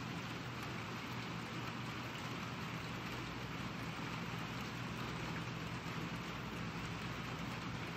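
Steady rain falling, with a faint low hum underneath.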